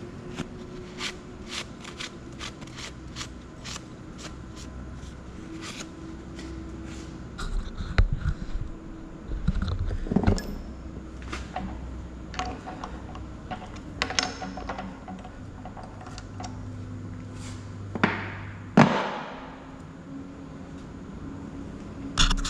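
Metal chips clicking and skittering as a rag wipes them off a drilled steel plate, then scattered knocks and clatter of hands working at a radial drill press. A low steady hum runs underneath and stops near the end.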